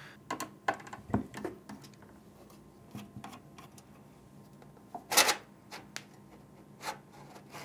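Screwdriver working out the case screws of a computer power supply, with small screws and the metal housing handled on a wooden desk: scattered light clicks and taps, and a sharper click about five seconds in.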